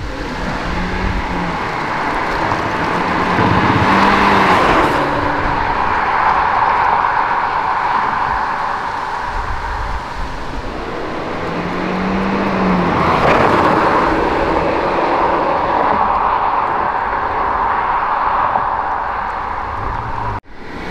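Audi A5 Sportback 1.8 TFSI turbocharged four-cylinder petrol engine on its stock exhaust, running and swelling twice as it is revved or accelerated. The exhaust note is faint and mostly buried in a steady rushing noise: the stock 1.8 exhaust makes little sound.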